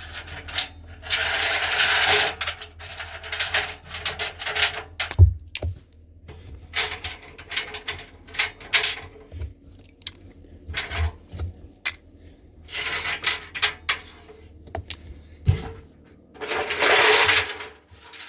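Light clinking and rattling of small hard objects, with a single heavier knock about five seconds in and two longer rattling bursts, near the start and near the end.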